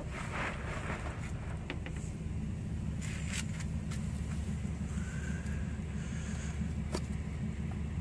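Steady low mechanical drone, with a few light clicks as the cooler's drain plug is unscrewed by hand.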